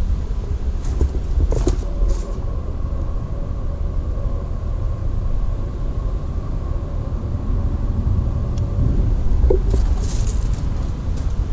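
Ford Transit tipper body's hydraulic tipping pump running: a faint steady whine from about two seconds in until near the end, over a low steady rumble, with a few short knocks.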